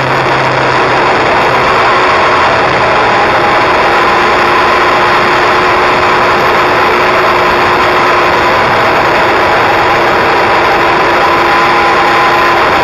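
Kawasaki inline-four sport bike engine running at a steady cruise, its pitch nearly level with a slight rise about two seconds in, under heavy wind and road noise.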